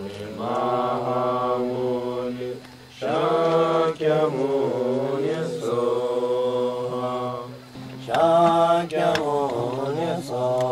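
Tibetan Buddhist mantra chanted in long, sustained sung phrases, with short breaks for breath between them.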